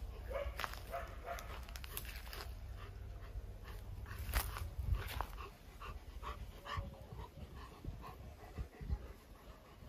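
A dog whining and panting, with many short scratchy clicks throughout.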